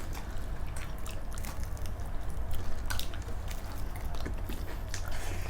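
People chewing and eating food, with many small wet smacks and clicks, over a low steady hum.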